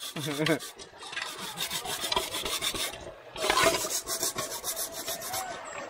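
Pumice stone (buga) scrubbing soot off a blackened cooking pot, with quick repeated rasping strokes and a short pause about halfway through.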